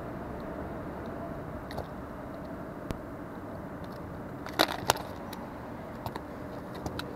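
A few sharp clicks and light rattles of handled fishing gear, the loudest two close together a little past the middle, over a steady low background rumble.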